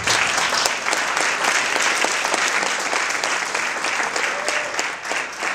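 Audience applauding: dense clapping from many hands, easing off slightly near the end.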